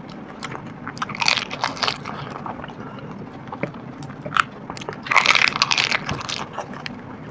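Crisp, hollow pani puri shells crunching as they are bitten and chewed. There are two loud bouts of crackling, about a second in and about five seconds in, with small clicks in between.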